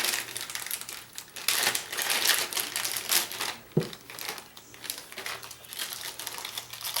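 Plastic packaging crinkling and rustling in irregular bursts as small showerhead kit parts are handled and unwrapped, with one sharp knock a little over halfway through.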